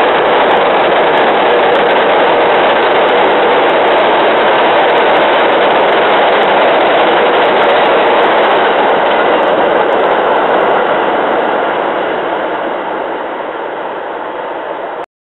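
Passenger train passing close by at speed: a loud, steady rushing noise of the cars going by. It fades over the last few seconds as the end of the train clears, then cuts off abruptly.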